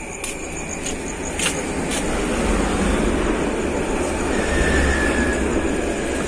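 Rumble of a passing motor vehicle, growing louder over the first few seconds and then holding steady.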